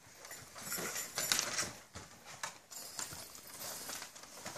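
Scattered rustling and light knocks as toys and stocking contents are handled and moved about.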